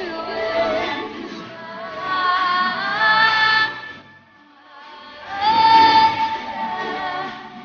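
Background song with a sung vocal line over music, dipping away briefly about four seconds in before the singing comes back.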